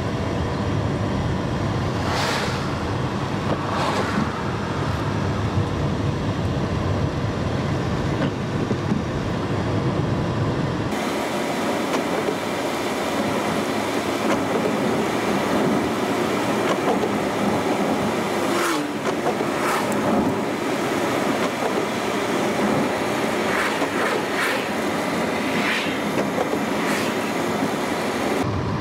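Road noise inside a moving car on a wet road: steady tyre and engine noise, with a few brief whooshes. About a third of the way in, the low rumble drops away and the hiss turns brighter.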